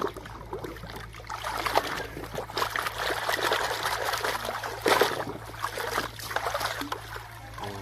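Water trickling and splashing over a toy tractor as it is washed, uneven throughout, with a sharper splash about five seconds in. A steady low hum runs underneath.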